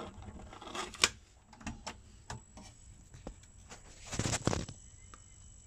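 Plastic clicks and clatter from a Technics RS-D190W double cassette deck's tape doors and cassettes being handled, with a louder rattle about four seconds in.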